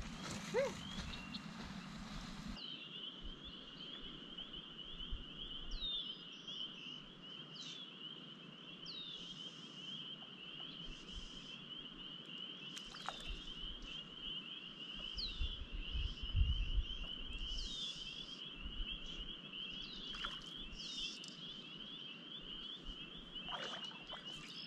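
A spring chorus of frogs calling: a steady high trill, with short chirps over it about once a second, from about two and a half seconds in. A brief low rumble comes about two-thirds of the way through.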